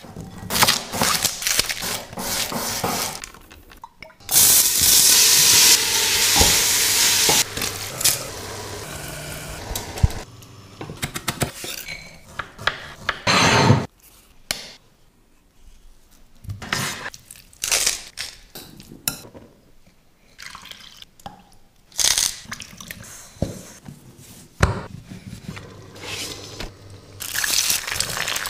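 Close-up kitchen food-prep sounds: knocks and clinks of ingredients dropping into a glass bowl and of knife work, with a stretch of steady hiss of liquid a few seconds in. Near the end, eggs sizzle in a hot frying pan.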